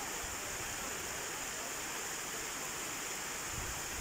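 Steady rush of shallow water spilling and splashing over a low ledge, an even wash of sound with no breaks.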